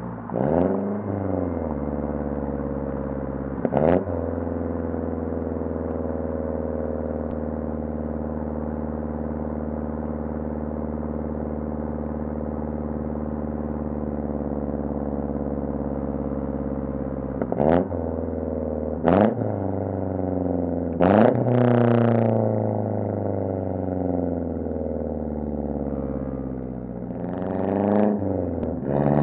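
MazdaSpeed 6's turbocharged 2.3-litre four-cylinder, heard through its catless downpipe and resonator-only single-exit exhaust, running at a steady drone while cruising. Its pitch climbs briefly at the start and again near the end as the car accelerates. Short sharp bursts cut in once about four seconds in and three times in the second half.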